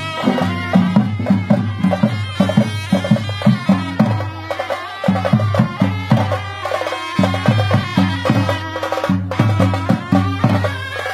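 Traditional folk music: a drum beats a fast, steady rhythm under a held, high melody line, with a couple of brief pauses in the drumming partway through.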